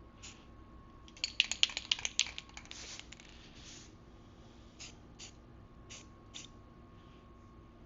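Aerosol spray paint can: a quick burst of rattling clicks as the can is shaken, then short hisses of spray paint being applied, several in a row.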